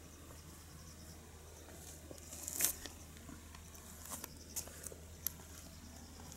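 Insects chirping faintly in a steady high-pitched pulsing, with a few sharp crackling clicks, the loudest about two and a half seconds in and several smaller ones around four to five seconds in.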